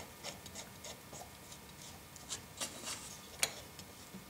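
Light metallic clicks and scrapes of a Stanley No. 9 1/2 block plane's lever cap and modified knob being fitted and worked by hand, irregular small ticks with one sharper click about three and a half seconds in.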